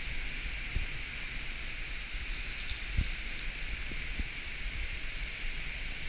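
Steady rushing hiss of a waterfall, with a few low thumps on the microphone.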